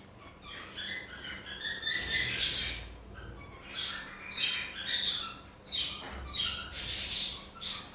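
Pet parrot squawking and chirping in a string of short, harsh calls.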